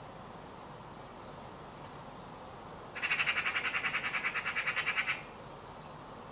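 Eurasian magpie giving its harsh rattling chatter, one burst of about two seconds at roughly eight notes a second starting about three seconds in. It is the alarm or mobbing call, aimed at the cat perched close by.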